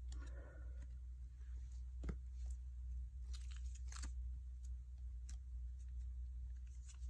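Quiet room tone with a steady low hum and a few faint, scattered clicks and taps.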